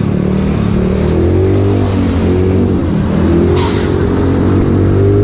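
A vehicle engine running while driving, its pitch rising and falling as it speeds up and slows down, with a short hiss about three and a half seconds in.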